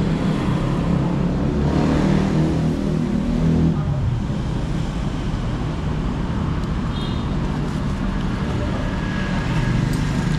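Road traffic going by on the street outside: a steady rumble of engines, swelling twice as vehicles pass, the second time a motorbike near the end.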